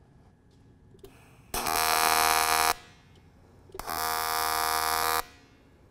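AC TIG welding arc buzzing in two bursts of about a second each, a second apart, as the tungsten tip is balled up for welding aluminum.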